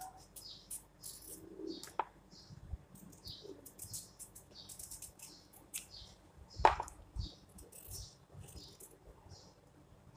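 Vegetable peeler scraping strips of skin off a red carrot in short repeated strokes, with a sharp tap about two-thirds of the way through.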